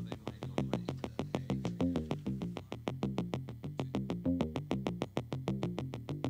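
Background electronic music: a quick, even run of short synthesizer notes, about seven a second, over a low bass line.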